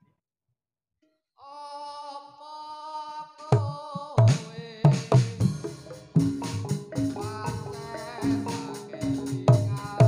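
Live gedruk dance music starting up: after a short silence a single held note sounds, then drums and percussion come in about three and a half seconds in with a strong, steady beat under the melody.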